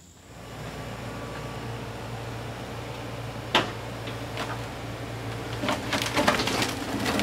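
A heavy machine's diesel engine runs steadily. There is a sharp knock about three and a half seconds in, then a growing run of cracks and knocks from the wooden house framing being broken apart near the end.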